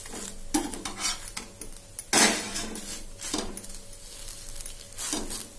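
Stainless steel spatula scraping and clinking against an iron tawa while a dosa is rolled up on it, with a faint sizzle underneath. The strokes come irregularly, the loudest about two seconds in.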